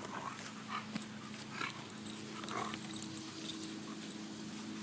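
A dog chewing and worrying a large wooden stick: scattered short, irregular crunching and snuffling sounds.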